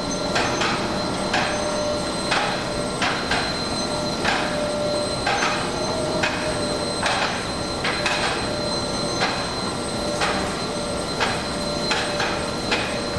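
Observatory dome rotating on its drive: a steady motor whine with irregular metallic clunks, about one or two a second, as the dome rolls round.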